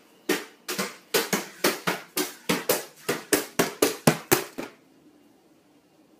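A baby's hands slapping a plastic high-chair tray, about sixteen quick sharp smacks at roughly four a second, stopping a little over four seconds in.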